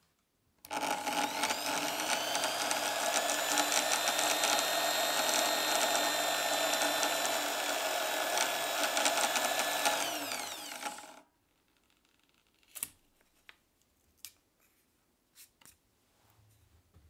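Drill press motor switched on, spinning up quickly and running steadily while the bit drills into a strip of MDF, then switched off about ten seconds in and winding down with a falling whine. A few light clicks and knocks follow as the workpiece is handled.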